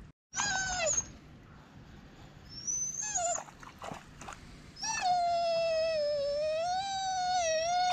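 A dog whining in high-pitched calls: a short falling whine, a brief second one, then a long drawn-out whine of about three seconds that wavers up and down in pitch.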